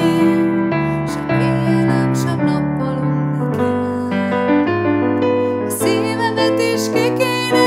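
A woman singing a slow, tender Hungarian song with vibrato, accompanied by chords on a digital piano.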